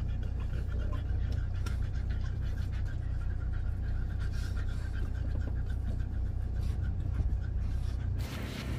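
Boston terrier dogs panting rapidly over the steady low hum of the vehicle's engine, heard inside the cabin. The sound changes a little before the end.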